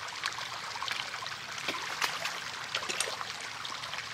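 Pond water trickling and dripping, with a few sharp little splashes and clicks, as a wader-clad trapper works his hands among sticks in the water.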